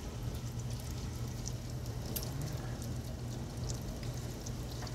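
Heavy rain from a hurricane's outer rain band falling and pattering on window glass, heard from inside, with scattered sharp drop ticks. A steady low hum runs underneath.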